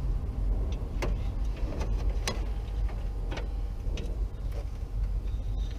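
Scattered clicks and knocks as the plastic fan shroud and mounting hardware are handled and worked into place in a truck's engine bay, about five sharp ones over a steady low rumble.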